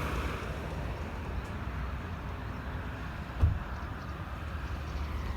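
Low steady vehicle rumble, with a single thump a little past halfway.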